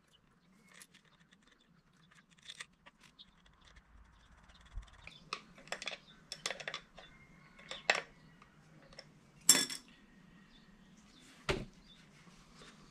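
Scattered metallic clinks, clicks and knocks from a Fiido D2s electric bike's rear hub-motor wheel with its sprocket cassette being handled, its cable fed through and the wheel turned over on a concrete floor. The knocks grow busier partway in, the loudest about nine and a half seconds in and another about two seconds later.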